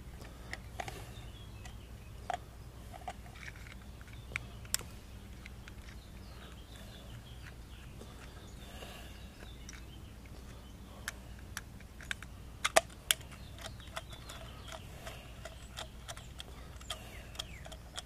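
Phillips screwdriver backing screws out of a plastic 30-amp RV plug: scattered light clicks and ticks of the tool and screws on the plastic, with a few sharper clicks past the middle, over a faint steady background.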